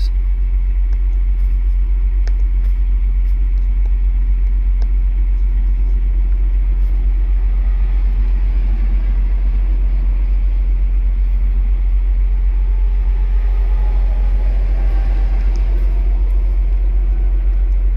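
Steady low rumble of an idling engine, with a few faint clicks.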